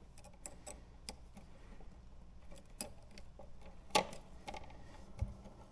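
Faint, irregular small clicks and ticks of a house wire being straightened out by hand, ready to push into the back of a new outlet, with a sharper click about four seconds in and a soft thump near the end.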